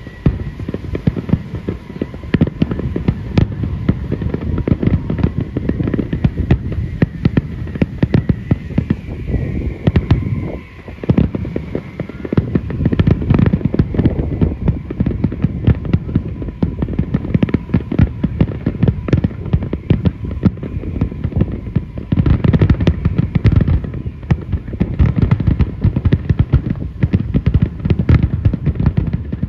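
Aerial fireworks display: a dense, continuous barrage of overlapping bangs from bursting shells. There is a brief lull about ten seconds in, and the bangs come heavier and thicker in the last third.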